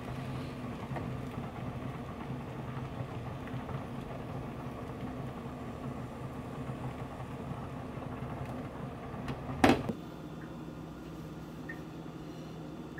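Thin sheet of beaten egg cooking in a nonstick frying pan on an electric hob, over a steady low hum. One sharp knock comes near ten seconds in, after which only a quieter steady hum remains.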